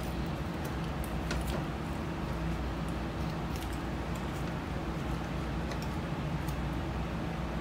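Steady low hum of kitchen machinery, with faint scattered clicks and ticks of a knife working through a pork shoulder to separate the hock.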